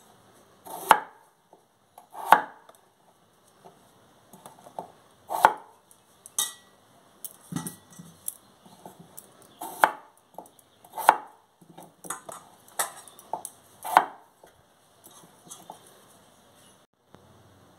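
Broad-bladed knife chopping a peeled potato into chunks on a wooden chopping board: sharp knocks of the blade hitting the board every second or two, with lighter taps in between.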